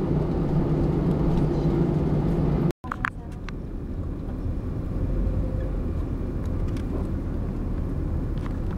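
Steady drone of an airliner's engines heard inside the cabin as the plane taxis. It is cut off abruptly about three seconds in and replaced by the low road rumble of a car driving along a street.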